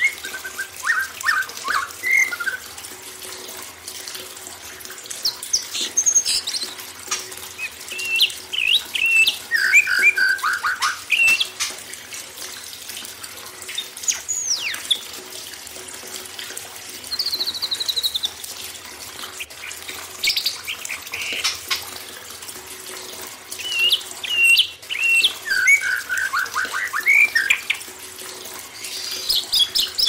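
Songbirds singing in short, varied whistled phrases, quick trills and chatters that come in clusters with pauses, over a steady sound of running water.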